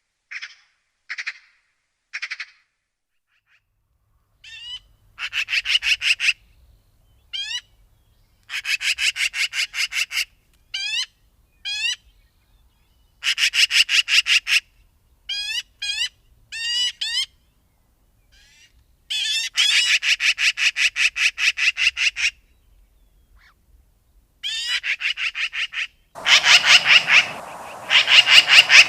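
Magpie calling: a few short separate calls, then repeated bursts of fast rattling chatter of about eight notes a second, each burst lasting one to three seconds.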